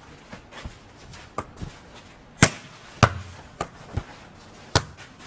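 A volleyball being hit and bouncing during casual play: a string of sharp, irregular smacks, about nine in all, the loudest about two and a half seconds, three seconds and near five seconds in.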